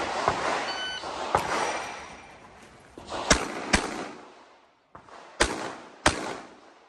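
Pistol shots at a handgun match, each sharp crack followed by a short echo. There are five of them, the last four in two pairs, each pair about half a second apart.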